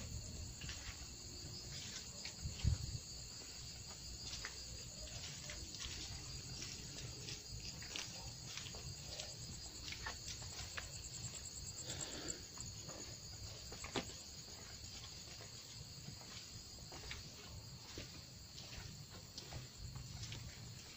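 Crickets and other night insects chirping steadily, with scattered light footsteps and knocks.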